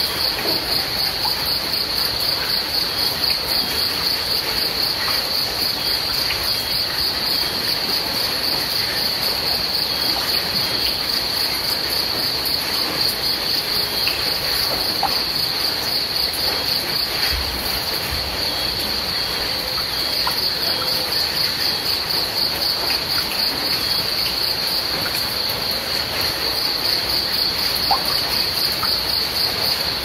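Crickets chirping in a steady chorus, a fast pulsing trill that never stops, over a faint even hiss.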